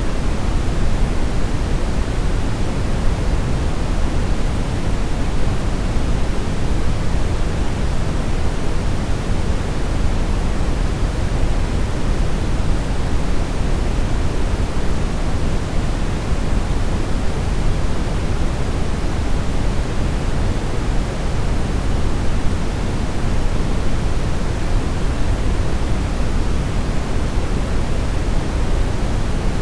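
Steady brown noise: an even, unchanging rushing hiss weighted heavily toward the low end, with no tones or events.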